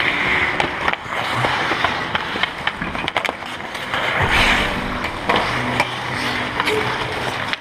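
Ice skate blades scraping and carving on rink ice close by, with sharp clacks of hockey sticks and pucks scattered throughout; two louder scraping swishes come about half a second and four and a half seconds in.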